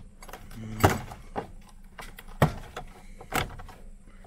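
Several sharp taps and scrapes of a steel screwdriver tip poking at the rust-rotted sill and floor metal of a VAZ 2106, the loudest about two and a half seconds in. The metal is rusted through in places.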